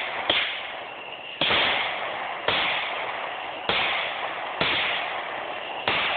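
Aerial firework shells bursting: about six sharp bangs, roughly one a second, each trailing off over about a second.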